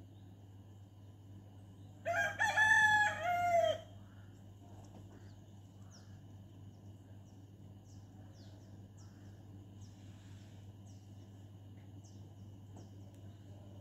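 A rooster crowing once, about two seconds in, a single call of under two seconds. Faint short high bird chirps and a steady low hum sound throughout.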